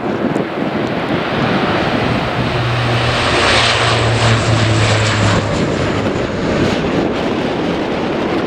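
Airliner engines passing close, loudest about three to five seconds in, with a low steady hum under the noise.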